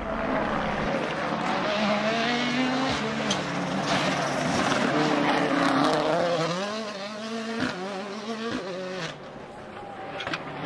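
Ford Fiesta WRC rally car at full attack, its engine revving hard with the pitch climbing and dropping through quick gear changes. A couple of sharp cracks come a little past the middle, and the engine falls quieter near the end.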